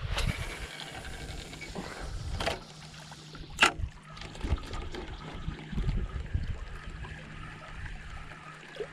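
Small waves lapping and trickling among shoreline rocks, with gusts of wind buffeting the microphone. Two sharp clicks or splashes stand out, about two and a half and three and a half seconds in.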